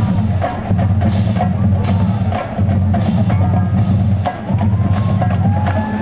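Percussion-heavy music with a strong low bass that comes in phrases about two seconds long, each followed by a brief break, under sharp drum strokes.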